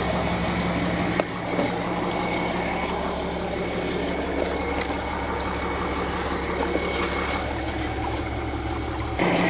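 A tow truck's engine idling steadily, with a couple of light knocks about a second in.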